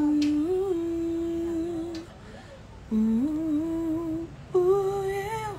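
A man humming a song's melody in three phrases of long held notes with small steps in pitch, short pauses between them.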